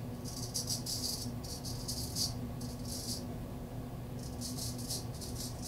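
Straight razor scraping through lathered stubble against the grain, a short crackling rasp with each stroke. There are about nine quick strokes with a pause near the middle, over a low steady hum.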